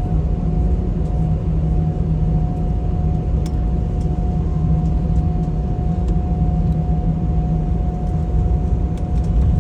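Airliner cabin noise before takeoff: a steady low rumble from the engines running at low power, with a constant hum and a higher steady whine over it.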